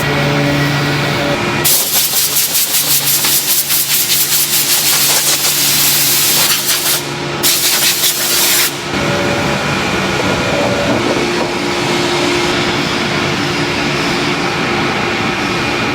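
Filter-production machinery running with a steady hum. About two seconds in, a loud hiss starts, pulsing rapidly like a jet of air or spray. It breaks off briefly near seven seconds and stops about nine seconds in.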